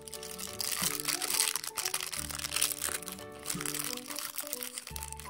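A crinkly foil wrapper being torn open and unwrapped by hand from a small toy cube, crinkling most strongly from about one to three seconds in, over background music.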